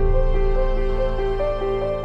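Soft background music: a gentle melody of held notes over a steady low bass.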